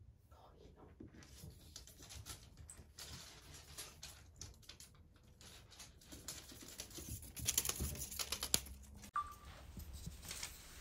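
Kittens at play: light, irregular scratching and clicking, with a run of rapid clicks about seven and a half to eight and a half seconds in.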